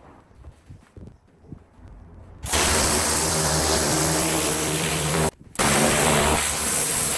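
Kränzle K10/122 pressure washer starts abruptly about two and a half seconds in, its motor humming steadily under the loud hiss of the spray. It cuts out for a split second a little past five seconds, then runs again.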